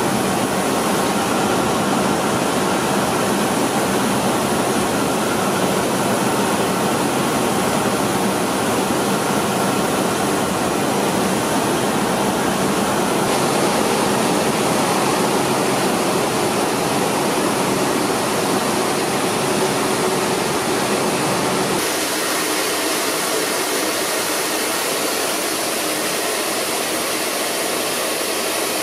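Rice mill machinery running: a loud, steady whirring noise of motors with grain pouring. The tone of the noise shifts abruptly about 13 seconds in and again about 22 seconds in.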